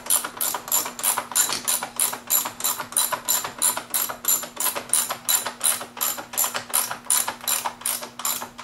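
A hand ratchet clicks as it runs in a T25 Torx screw holding the radiator fan. The clicking is even and rapid, about three or four strokes a second.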